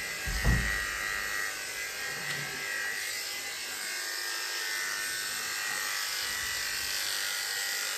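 Electric dog grooming clippers running steadily while clipping a terrier's coat short in a pre-clip. A brief low thump about half a second in.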